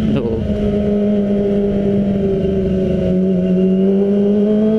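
Kawasaki ZX25R's 250 cc inline-four, through an Arrow exhaust, running while riding: just after the start the note breaks briefly as the quickshifter knocks it down a gear, then it holds a steady note that slowly rises in pitch over the second half.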